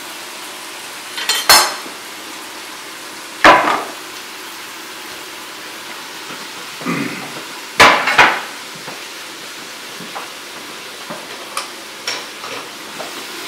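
A metal baking pan and other kitchenware knocking on a granite counter: four sharp clanks spread over several seconds, then a few lighter taps. Underneath runs a steady sizzle of food frying on the stove.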